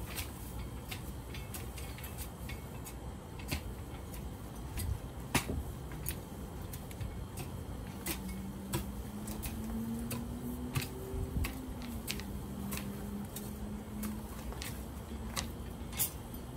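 Soil being tilled by hand in a garden bed: irregular clicks and scrapes of a tool working the dirt. A faint low hum comes in about halfway through and holds steady.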